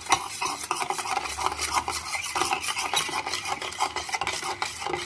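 Steel spoon beating a runny custard mixture of egg yolks, sugar, milk and cornflour fast in a stainless-steel saucepan: a rapid, continuous scraping and clinking of metal on metal. It stops suddenly at the end.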